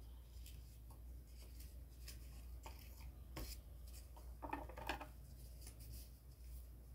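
Faint handling of cardboard pieces on a wooden table: scattered light taps and rustles, with a short louder scrape about four and a half seconds in, over a steady low hum.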